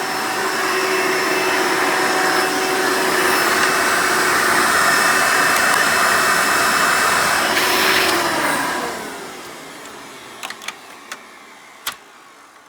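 Hoover Elite direct-air upright vacuum motor running loud and steady, then switched off about two-thirds of the way through and spinning down with a falling whine. A few light clicks of handling follow near the end.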